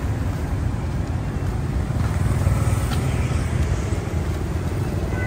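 Steady city road traffic: a continuous low drone of vehicle engines and tyres passing on the street.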